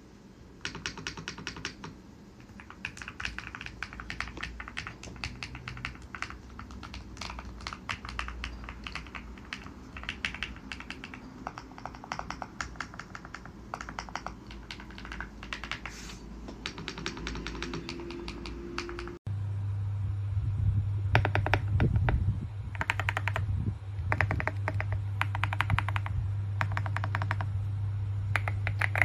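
Typing on a GMK67 mechanical keyboard: rapid runs of keystroke clicks in bursts, with short pauses between them. About two-thirds of the way through the sound changes abruptly, and a steady low hum runs under louder typing.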